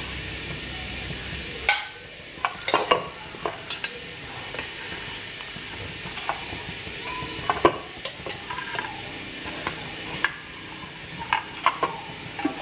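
Steel spoon scraping and clinking against a stainless-steel idli plate as soft idlis are prised out of the moulds: a scatter of sharp clinks, bunched about two to three seconds in, around eight seconds and near the end, over a steady hiss.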